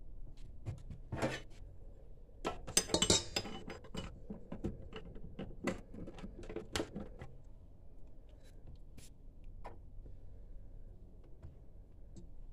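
Metallic clinks and knocks as a stand mixer's metal dough hook is handled and fitted onto the mixer head over its stainless steel bowl. The clatter is busiest about three seconds in and thins out after about seven seconds.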